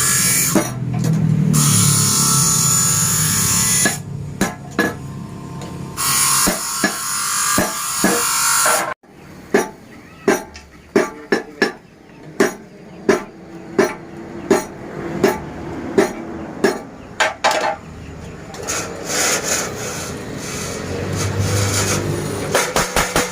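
Hammer blows on metal in a blacksmith's forge: sharp, ringing strikes about one to two a second, quickening near the end. They follow a loud steady hiss that stops abruptly about a third of the way in and comes back near the end.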